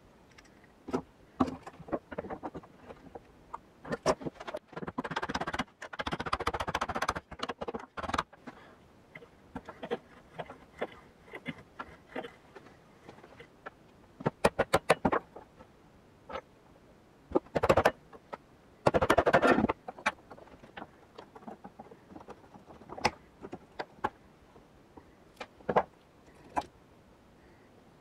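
Hand tools working on a rusty old iron padlock in a bench vise: scattered metal clicks, clinks and knocks, a quick run of sharp taps about halfway through, and two longer, noisier stretches as the lock is worked apart.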